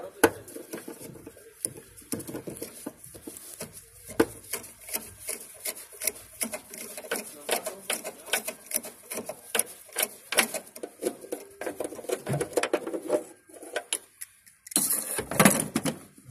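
Socket ratchet working a 12 mm bolt loose, a long run of quick, uneven clicks from the ratchet with metal rattling, and a louder burst of handling noise near the end.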